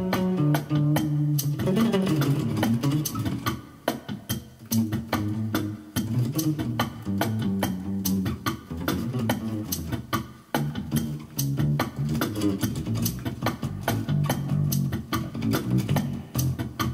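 Instrumental music: a short-scale Ibanez Mikro electric bass plays an improvised line of low notes over a steady drum-machine beat with quick, even ticks.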